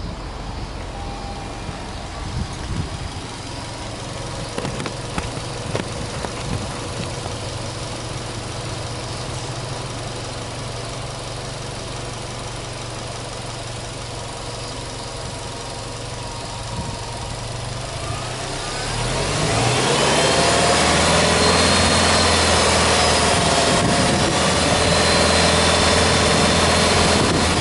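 Subaru Legacy B4 2.0GT spec.B's turbocharged EJ20 flat-four engine idling steadily. About two-thirds of the way through, a rising whine sets in and the sound grows louder and holds steady.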